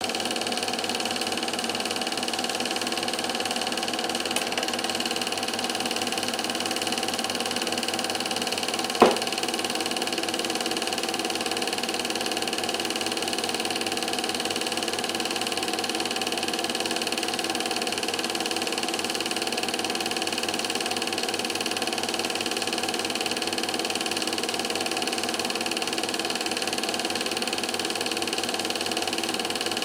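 Steady mechanical whir of a film projector running as the silent Standard 8 film plays, with a single sharp click about nine seconds in.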